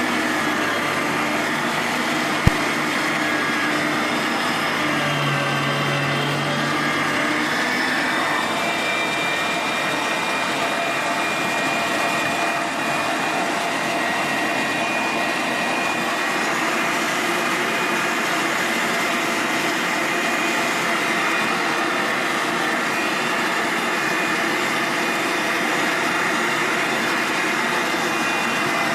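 Luvele Ultimate electric meat grinder running steadily, its motor and metal gears giving a constant whir with a high whine. There is a single sharp click about two and a half seconds in.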